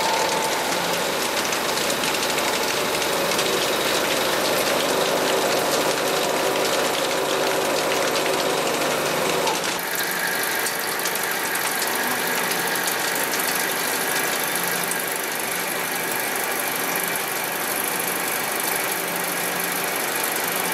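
CNC turning center's live milling tool cutting metal: a 63 mm face cutter milling the outer diameter of a bar held in the chuck, a steady dense cutting noise with a hum under it. About ten seconds in the sound changes abruptly to a 16 mm end mill cutting a 30 mm deep axial slot, a heavy cut at 149% spindle load.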